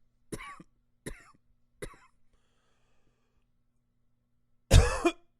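A man coughing: three short coughs in quick succession, then after a pause of about two seconds one louder, longer cough near the end.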